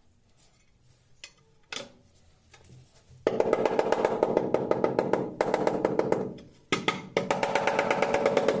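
Rubber mallet tapping a ceramic floor tile to bed it into the adhesive. A few single knocks come first, then about three seconds in a fast, continuous run of taps starts, with a short break near the middle.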